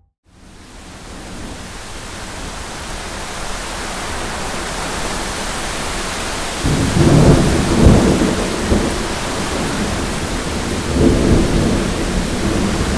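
Thunderstorm: steady rain fading in from silence and growing louder, with rolling thunder rumbling about halfway through and again near the end.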